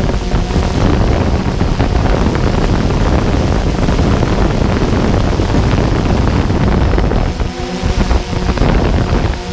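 Steady motor noise mixed with heavy wind buffeting on the microphone, dipping briefly near the end.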